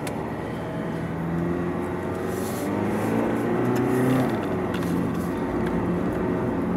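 Alfa Romeo Giulia Veloce's 2.2-litre four-cylinder turbodiesel heard from inside the cabin, accelerating: its pitch and loudness rise for about four seconds, then the pitch drops as the automatic gearbox shifts up, and it runs on under power.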